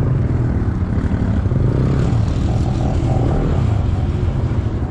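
Suzuki GSX-S150 single-cylinder motorcycle engine running steadily while riding, with wind and tyre noise on a wet, flooding road. The rider suspects water has got into the engine.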